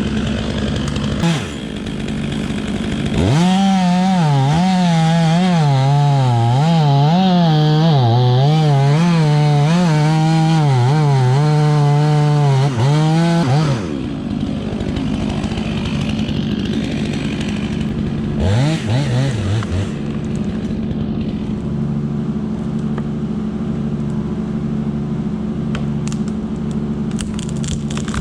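Chainsaw running, its engine revving up and down repeatedly for about ten seconds, then dropping to a steadier, quieter drone for the rest of the stretch.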